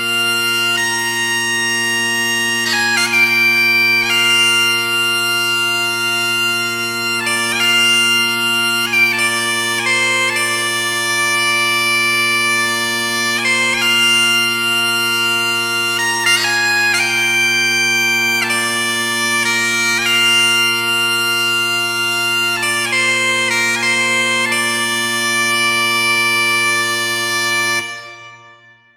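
Scottish bagpipes playing a tune: steady droning bass tones held throughout under a chanter melody, with quick ornamental flourishes between notes. The music stops about a second before the end.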